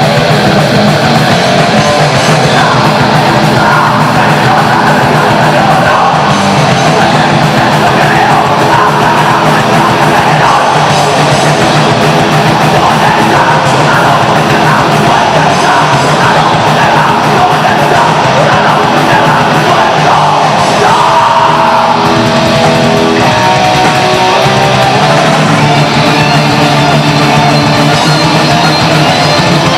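Heavy metal band playing live and loud, with electric guitars.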